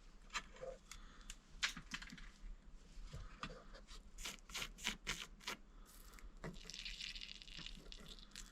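Faint, irregular clicks and taps of a hand tool being handled and cleaned, with a brief scratchy rubbing about seven seconds in.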